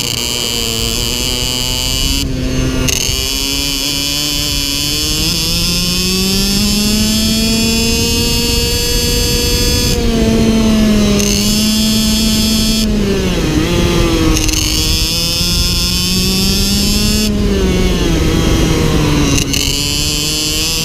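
IAME X30 Super 175 cc two-stroke shifter kart engine at racing speed: its note climbs steadily under acceleration, then drops sharply off the throttle about four times, around 2, 10, 13 and 17 seconds in. Noise runs under it throughout.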